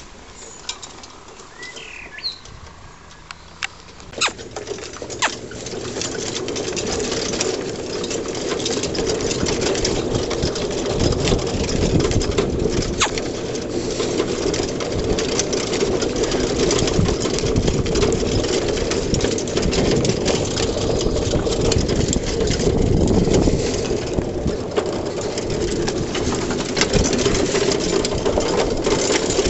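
Steady rumble and rattle of a pony-drawn cart rolling over grass, building up about four seconds in. A bird chirps briefly near the start.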